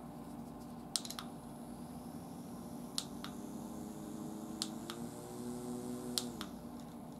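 Button clicks on a GO Fan Flip handheld rechargeable fan: four press-and-release clicks about a second and a half apart, stepping the fan on and through its speeds and then off. A faint small-motor whine and blade hum run between the clicks, shifting higher partway through and stopping after the last click.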